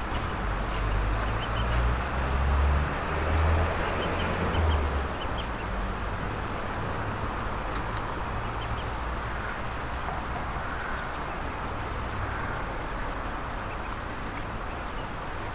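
Ducklings peeping faintly and ducks calling now and then over a steady background hiss. A low rumble rises and falls through the first five seconds.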